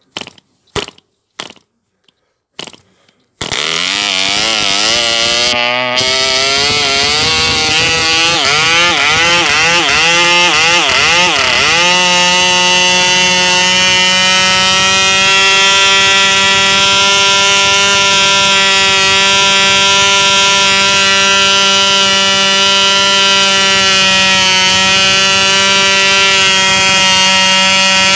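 Frog 249BB 2.49 cc model diesel engine being hand-flicked by its 9x4 nylon propeller: a few sharp clicks, then it fires about three seconds in and runs. Its speed surges up and down for several seconds before settling, about twelve seconds in, into a steady high-pitched buzz.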